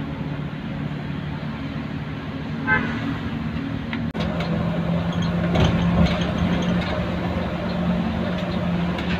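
Bus engine running at a steady idle: a low, even drone with road and terminal noise around it. The drone breaks off about four seconds in and carries on at a slightly different pitch.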